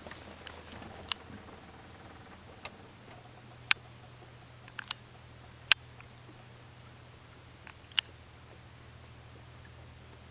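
Several sharp, brief clicks at uneven intervals over a faint steady low hum.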